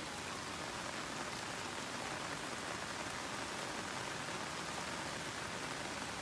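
Steady rain falling on garden plants with broad leaves: an even, unbroken hiss.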